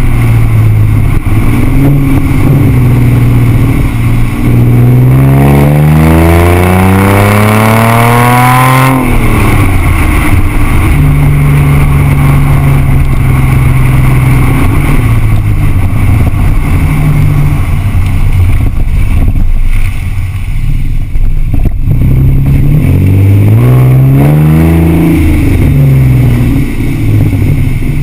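Exhaust of a 2006 Audi A6 3.2 V6 with the mufflers removed and the two catalytic converters and four resonators left in, heard from under the moving car. About five seconds in it rises in pitch for about four seconds under acceleration, then drops sharply at a gear change. It runs steadily for a while, then rises again and drops near the end.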